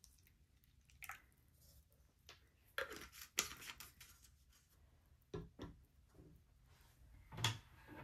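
A few faint clicks and knocks from a plastic bottle of cyanotype solution being handled: poured into a small cup, then set down on the table, with a cluster of knocks around three seconds in and single ones later.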